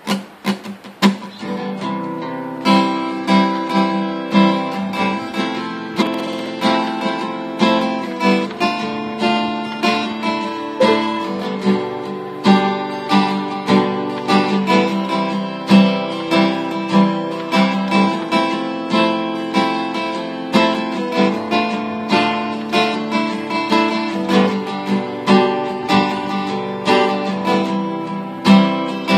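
Steel-string acoustic guitar played solo: a few single plucked notes, then from about two seconds in a steady rhythm of ringing chords.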